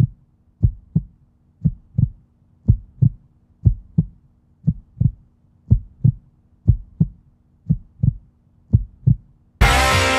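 Heartbeat sound effect: pairs of low thumps, lub-dub, about once a second. Near the end it is cut off by guitar-led rock music that starts suddenly.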